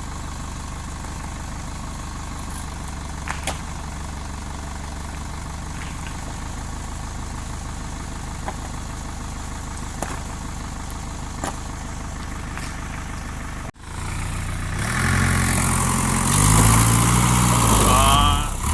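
Heavy logging truck engine idling steadily, with a few sharp clicks. Then the sound cuts off suddenly and the engine is heard louder, revving up and down.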